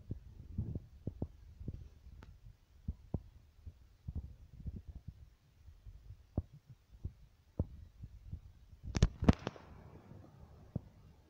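Handling and walking noise on a handheld phone's microphone: irregular low thumps and small clicks, with a louder double click and rustle about nine seconds in.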